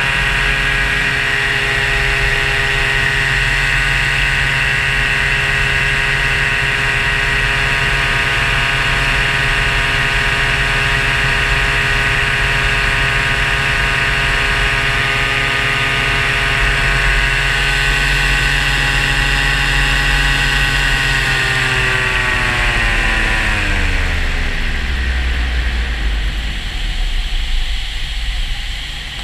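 Paramotor engine and propeller running at a steady speed in flight, then switched off about three-quarters of the way through: the pitch falls steeply over a few seconds as it spins down, leaving only wind rushing past the microphone.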